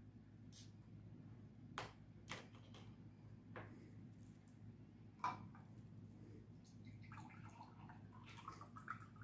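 Faint clicks and taps of a plastic water bottle and glasses being handled, then water poured from the bottle into a drinking glass, trickling faintly for about two seconds near the end.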